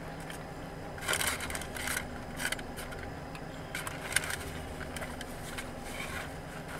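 Crinkling and rustling of a fast-food wrapper with chewing, in short bursts about a second in, around four seconds in with a sharp click, and again near the end, over a steady low hum inside the car.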